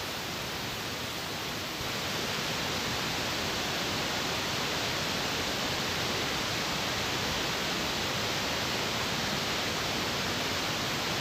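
Spice masala sizzling steadily in hot oil in a kadai as it is stirred and fried down, the oil starting to separate. The sizzle grows slightly louder about two seconds in.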